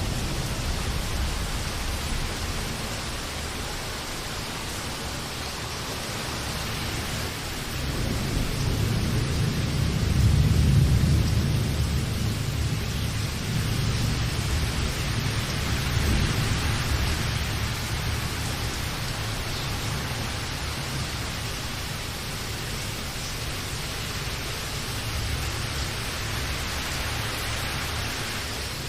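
Steady rain with low rolling thunder that swells about eight seconds in, peaks a few seconds later and rumbles on more faintly afterwards.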